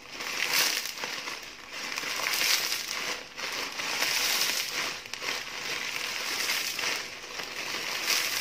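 Dry, fine vermicelli being crushed and snapped by hand inside its plastic packet: crinkling of the plastic wrapper with the crackle of breaking strands, in irregular bursts.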